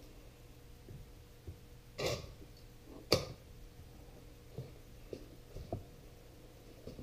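A steel bar clamp being set across glued wooden boards: a scrape about two seconds in, a sharp knock just after three seconds, then a few light clicks as its head is adjusted, over a faint steady hum.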